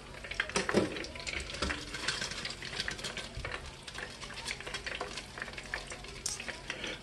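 Hot oil in an electric deep fryer sizzling and crackling, with a basket of just-fried chicken wings lifted out and hanging above it to drain.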